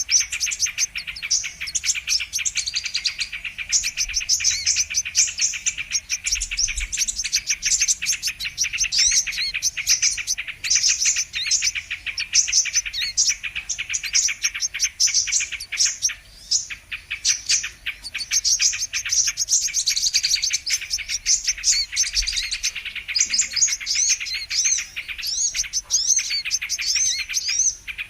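Brown-throated sunbird (kolibri kelapa) calls: a dense, unbroken stream of high, rapid chirps and twitters, as used for a bird-lure recording.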